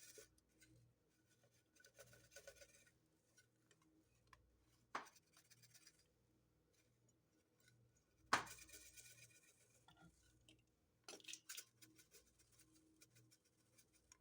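Quiet kitchen handling of a measuring spoon and spice jar while dried rosemary leaves are measured out: two sharp taps, the second louder and followed by a light scratchy rattle, then a few small clicks near the end.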